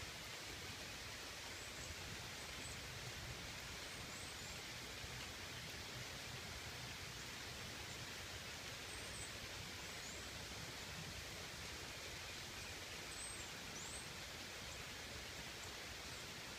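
Steady rain falling, an even hiss with no break, with a few faint, short high chirps now and then.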